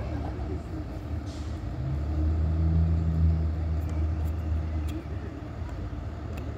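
School bus diesel engines running, a low steady rumble that grows louder for about three seconds in the middle before easing back. A short faint hiss comes about a second in.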